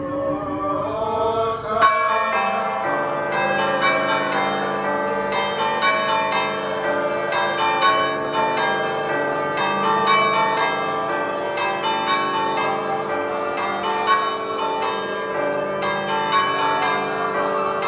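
Church bells ringing in a rapid, continuous peal: many overlapping strikes on several bells of different pitches, starting about two seconds in.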